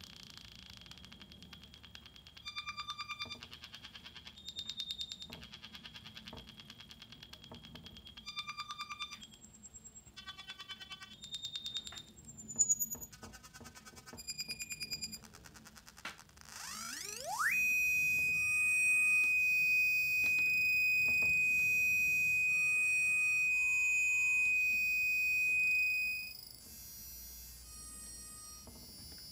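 Eurorack modular synthesizer oscillators making electronic tones: short bursts of rapidly pulsing beeps, then, a little past halfway, a tone that glides sharply upward into a loud, high, steady whine held for about nine seconds before it cuts off.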